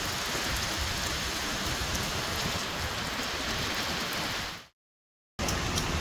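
Heavy monsoon rain pouring steadily. The sound cuts out completely for under a second near the end, then the rain resumes.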